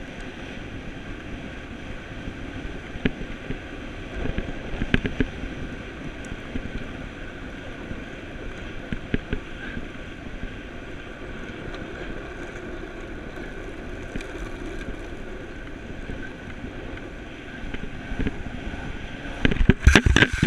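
Longboard wheels rolling fast on asphalt, a steady rushing noise mixed with wind on the microphone, with a few scattered knocks. Near the end comes a burst of loud clattering knocks as the board and camera tumble.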